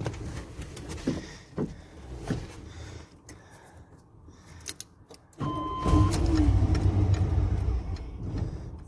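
A 1992 Chevy K2500's 7.4-litre 454 V8 cranking and firing up about five and a half seconds in, running for about three seconds. It runs only on starter fluid, as it is getting no fuel; the owner suspects the fuel pump relay. A few sharp clicks and knocks come before it.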